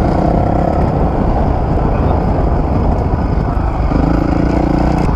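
Honda CRF450 dirt bike's single-cylinder four-stroke engine running under way, its note changing with the throttle as it is ridden.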